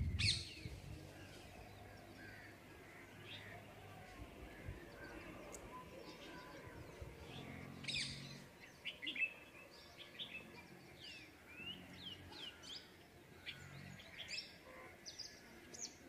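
Small birds chirping, many short quick calls, thickest in the second half. A brief low rumble at the very start is the loudest thing.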